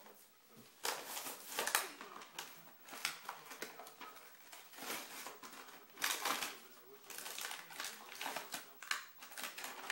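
Foil blind-bag packet of toy figures crinkling and tearing in the hands as it is opened, in irregular rustling bursts.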